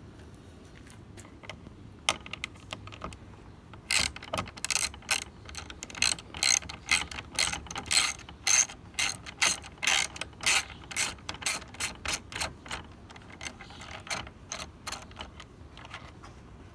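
Hand socket ratchet clicking in quick back-and-forth strokes as a bolt is run down, about two to three strokes a second. It starts with a few scattered clicks, comes in steadily about four seconds in, and grows fainter toward the end.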